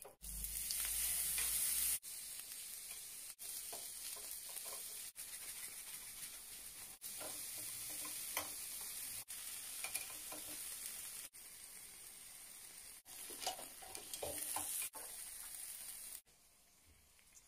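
Skewered octopus sizzling on a hot grill: a steady high hiss with small pops and crackles. The sizzle breaks off and restarts every second or two, and it turns much quieter near the end.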